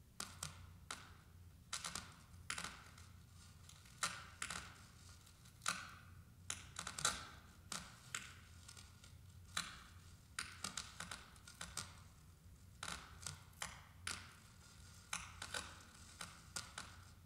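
Small open loudspeaker in an exposed battery circuit clicking and crackling in irregular clusters as bare wire ends and clips make and break contact, some clicks leaving a brief ring.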